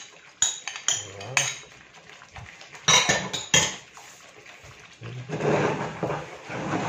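Wooden spatula knocking and scraping against a bowl and a nonstick frying pan as thick tomato sauce is scooped in and stirred, with several sharp knocks in the first few seconds, then a longer stretch of scraping and stirring near the end.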